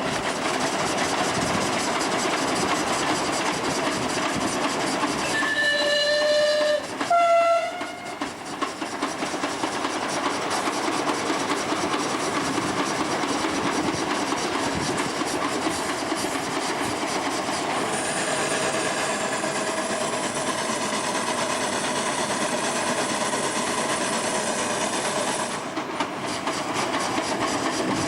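A train running with steady rolling noise and wheel clatter. About six seconds in its whistle gives two short blasts, the second higher in pitch. From about two-thirds of the way through, a thin high squeal runs for several seconds, then stops.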